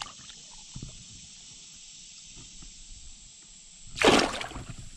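A largemouth bass splashing once as it kicks free of the hand and swims off on release in shallow river water, a short loud splash about four seconds in. Before it, only a steady high hiss and a few faint drips.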